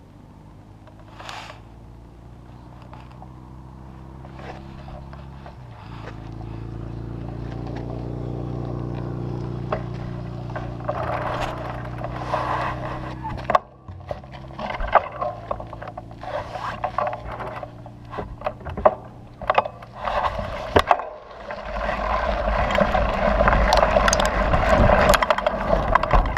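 Mountain bike ridden over a dirt trail, heard from a handlebar-mounted camera: a steady hum with many rattling knocks and clicks as the bike goes over bumps. About 21 seconds in, a louder low rumble of tyres and wind takes over as the bike speeds up.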